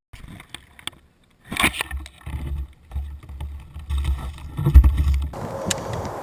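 Uneven low rumbling buffets on a camera microphone, loudest about three-quarters of the way in, with a few sharp clicks. The rumble cuts off abruptly.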